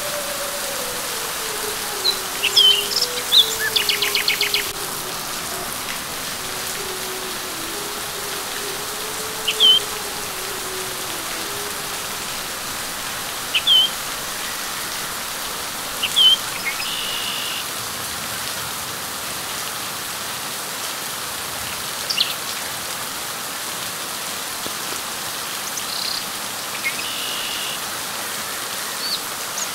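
Steady rain falling on leaves, an even hiss, with a bird giving short high chirps every few seconds and a few quick rattling trills.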